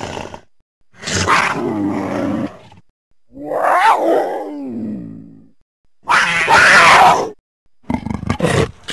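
Troodon dinosaur creature sound effects: a series of separate calls with short silences between them. The first two are long, and the second is pitched and falls away at its end. The third is the loudest and harshest, and a quick run of short calls follows near the end.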